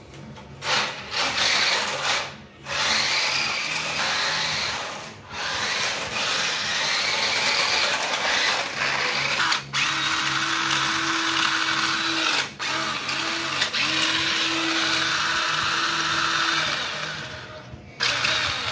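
Small electric motor of a toy RC car whirring in bursts, with a few brief stops; about ten seconds in a steady hum runs for several seconds, broken twice.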